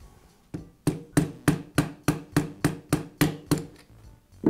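Quick, even taps on a socket set over a new plastic motor fan, driving the fan the rest of the way onto the compressor's motor shaft. About eleven taps at roughly three a second, then one louder knock near the end.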